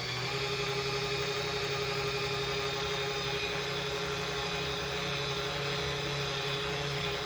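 Small portable washing machine's motor running steadily, agitating a vacuum sponge filter in the wash water, with an even hum.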